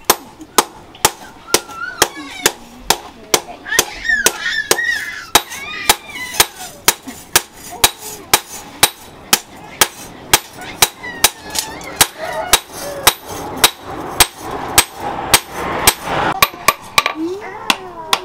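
Hand hammer forging a red-hot steel sword blade, cut from a motorcycle disc brake rotor, on a small post anvil: a steady run of sharp metal-on-metal blows, two to three a second.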